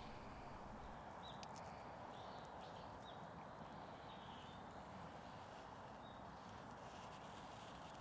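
Near silence: a low, steady outdoor hush with a few faint, short, high ticks scattered through it.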